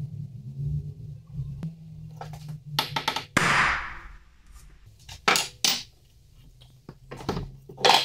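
A small hammer strikes metal in a series of sharp blows: a quick cluster near three seconds in, with a metallic ring, then single blows spread through the rest. A short scraping sound follows the first cluster.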